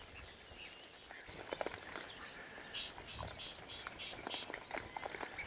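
Wild hogs at a feeder, heard faintly: scattered clicks and rustling from their feet and rooting, with a quick run of short squeals about halfway through.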